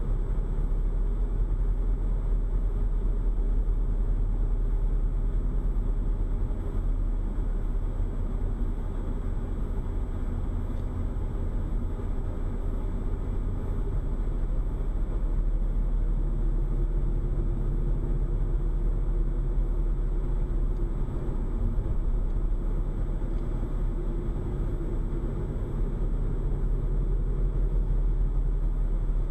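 Steady low rumble of a car driving along a paved road, tyre and engine noise heard inside the cabin through a dash cam's built-in microphone.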